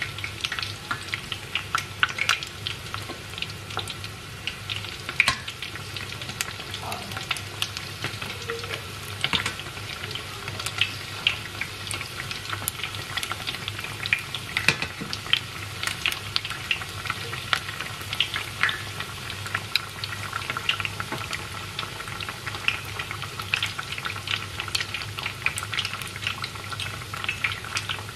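Chicken-topped bread slices deep-frying in hot oil in a stainless steel pot: a steady sizzle thick with sharp crackles and pops. A steady low hum runs underneath.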